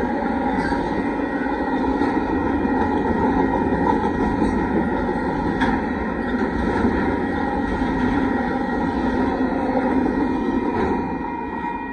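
Double-stack intermodal freight cars rolling past at close range: a steady rumble and rattle of steel wheels on rail with scattered clicks, the grade-crossing bell ringing underneath. The rumble falls away about 11 seconds in as the last cars clear the crossing.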